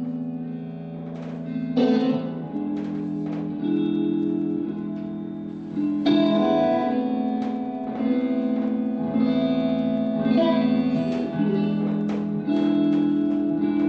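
Guitar playing an instrumental passage between sung lines, chords struck and left to ring, changing every second or two.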